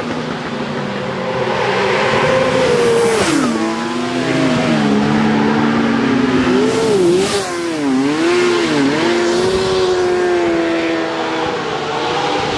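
Racing motorcycle engines at high revs, more than one at once, their pitch dropping sharply and climbing again several times, about three seconds in and again around the middle, as the throttle is shut and opened and gears change.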